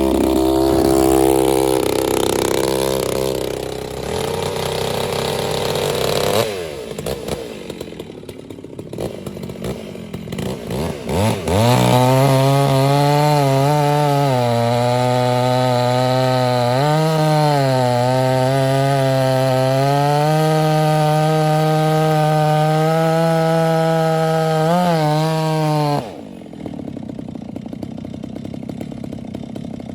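Chainsaw running hard at high revs, its engine pitch sagging briefly a few times as the chain bites into the wood. Near the end it drops abruptly back to a quieter idle.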